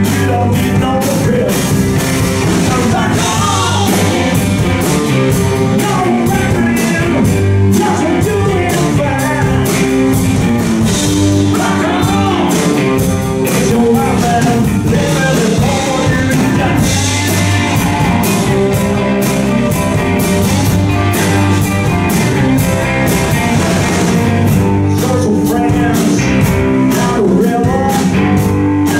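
Rock band playing live, with electric guitars, bass guitar and drum kit, at a steady loud level.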